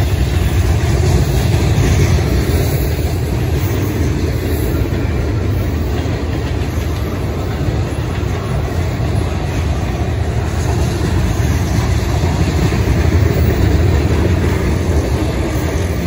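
A train rolling past close by: a loud, steady rumble of railcar wheels on the rails.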